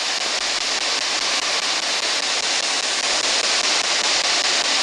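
Spirit box, a radio that sweeps rapidly through stations, giving out a steady, loud hiss of radio static through its speaker.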